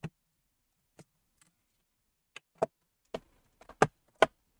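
Plastic clips of a laptop's bottom cover snapping loose as a metal pry tool is worked along its edge: a series of sharp, irregular clicks, sparse at first and louder and closer together near the end.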